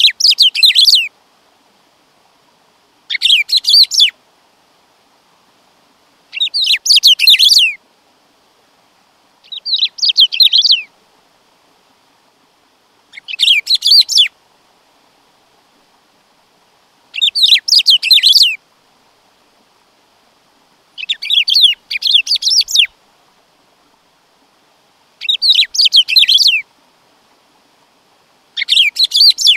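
Black-throated saltator (bico-de-pimenta) singing. It gives the same short song phrase about every three and a half seconds, nine times in all, each a quick run of short falling notes.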